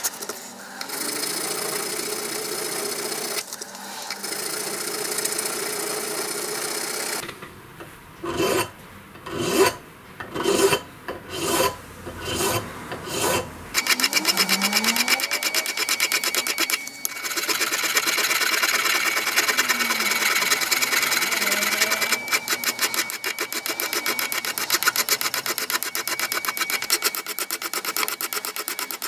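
Hand file rasping across the brass of an old hammer head. Steady filing at first, then a run of separate strokes around the middle, then fast, even filing strokes to the end.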